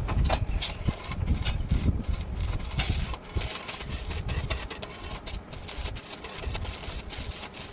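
Stick (arc) welding: the electrode's arc crackling and sputtering irregularly, with no steady tone.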